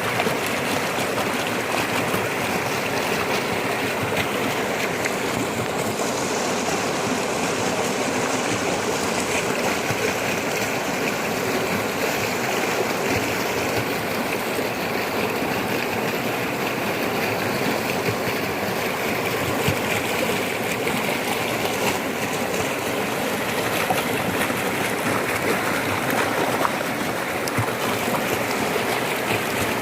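Rushing floodwater: a steady, loud rush of fast, turbulent water.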